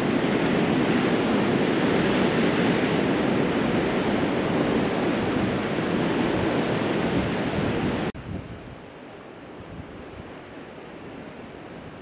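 Wind buffeting the microphone over the sound of the sea, a steady rushing noise that drops suddenly to a much quieter hiss about eight seconds in.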